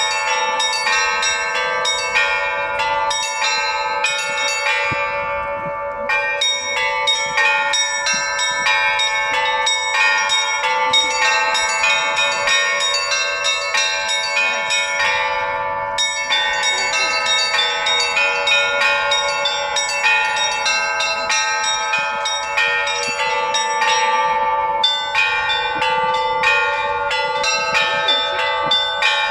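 Russian Orthodox church bells rung as a trezvon in the Novodevichy Monastery tradition: fast strikes of the small bells over the steady ringing of larger bells. The small bells pause briefly about every ten seconds.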